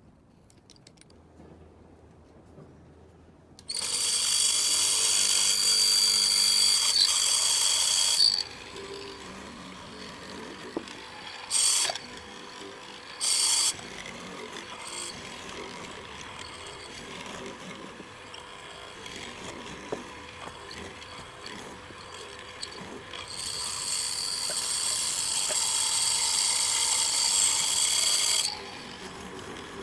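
An electric power tool running in bursts: a steady high whine for about four seconds, two brief blips, then a second run of about five seconds near the end.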